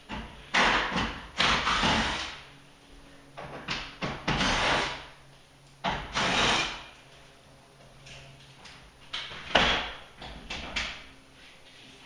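Irregular metal knocks and scraping as a garage door's jammed bottom bracket and lift cable are worked loose, about ten bursts with the sharpest bang near the end.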